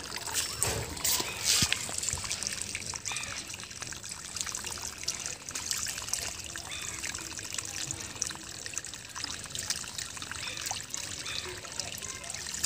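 Pond water trickling and splashing, with a few louder splashes in the first two seconds and then a steady trickle.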